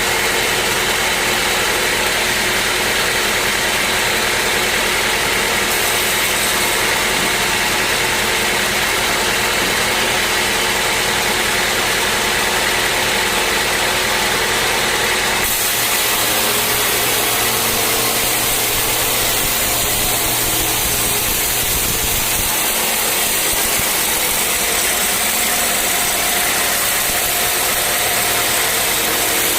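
Sawmill machinery running steadily, a constant engine-like drone with mechanical noise; the sound changes character abruptly about halfway through.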